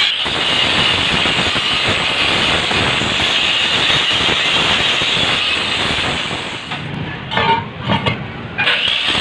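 Angle grinder with an abrasive disc cutting through steel plate, a steady high grinding hiss. Near the end the grinding stops and a few short knocks sound as the metal is handled, before the grinding starts again.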